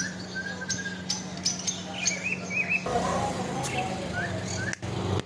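Parrot whistling and chirping: a long level whistle at the start, a warbling call about two seconds in, and two short rising chirps near the end, with sharp clicks in between. A steady low hum runs underneath.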